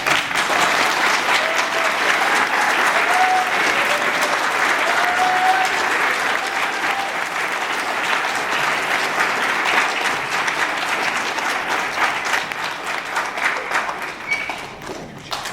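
Congregation applauding. The applause starts abruptly, holds steady for about ten seconds, then thins out and fades near the end.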